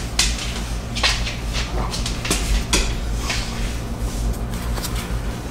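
Plastic black pepper shaker shaken over raw duck breasts: a handful of short, sharp shakes spread over a few seconds, with pepper pattering onto the meat, over a steady low hum.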